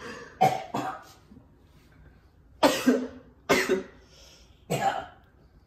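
A man gagging and coughing in five short, harsh bursts, retching at the stench of a dirty diaper.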